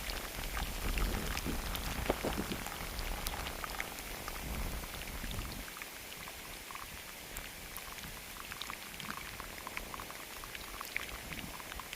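Steady rain falling, an even hiss with scattered drop ticks. A low rumble under it in the first half dies away about halfway through.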